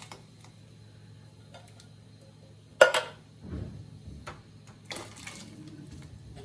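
Canned ackee being emptied from a tin into a stainless steel pot of hot water. About three seconds in come two sharp metal clanks close together, the loudest sounds, with a dull knock after them. A short splash of the ackee and its liquid pouring in follows about five seconds in, over a low steady hum.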